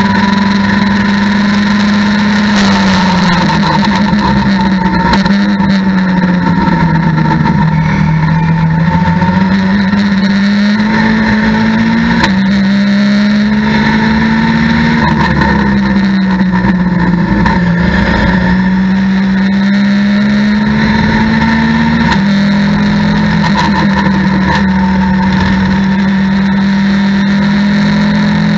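Mitjet race car's engine heard from inside the cockpit at racing speed, loud and continuous. Its pitch sinks and climbs and jumps sharply several times as the driver brakes, accelerates and changes gear.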